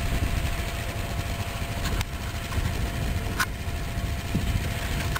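ATV engines idling with a low, steady rumble, with a couple of brief clicks partway through.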